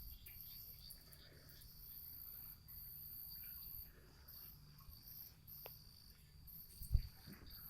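Crickets trilling in a steady high chorus that swells and drops back in stretches, over a low rumble, with one brief low thump about seven seconds in.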